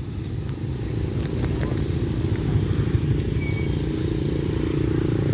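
Engines of small step-through motorbikes running as several pass close by, a steady low rumble that grows louder a little past the middle.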